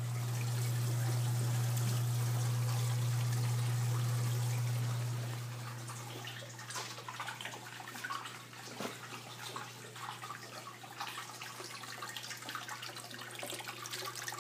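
Water trickling and splashing as it runs down the aquarium's overflow drains into the sump, over a steady low hum from the submersible return pumps. The hum is strongest for the first five seconds, then drops, leaving the water sound to the fore.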